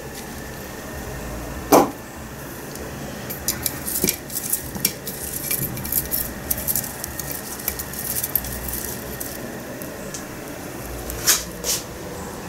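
Handling in the kitchen: dried dill umbels crackling and rustling as they are pulled out of a metal tin, with a sharp knock about two seconds in and another clatter near the end.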